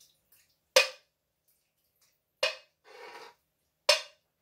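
Kitchenware being handled: three sharp clinks about a second and a half apart, with a brief rustling rush between the second and third.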